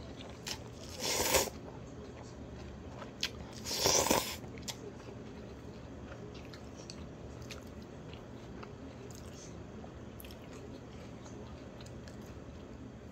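A person eating cold mulhoe: two loud crunchy bites, about a second in and again about four seconds in, then faint chewing.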